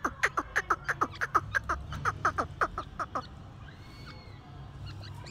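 Grey francolin calling in a fast run of short notes, each falling in pitch, about six a second, which stops about three seconds in.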